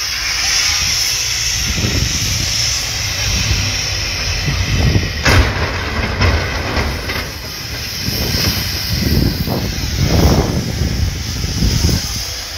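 Wind buffeting the microphone in a snowstorm, over the rumble of heavy vehicles sliding and crashing in a highway pileup. A sharp crash comes about five seconds in, and heavier rumbling surges follow near the end.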